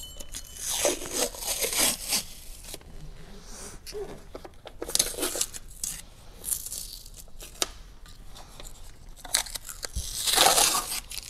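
Packing material being handled, torn and crinkled by hand, in irregular bursts.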